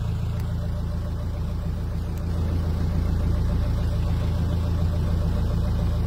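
Small fishing boat's engine running steadily at low revs, a constant low hum.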